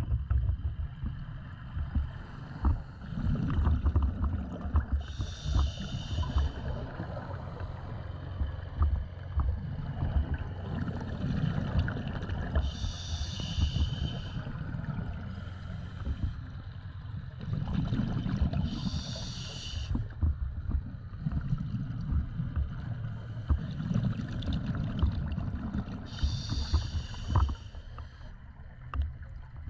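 Scuba diver breathing through a regulator, heard underwater: four breaths about six to seven seconds apart, each a hiss lasting a second or two, over a steady low rumble.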